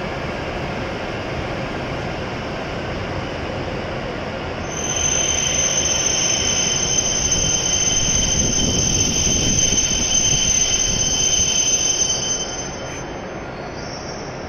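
W7-series Shinkansen train rolling slowly along the platform as it pulls in. About five seconds in, a loud, steady high squeal starts as it brakes to a stop, and it dies away near the end.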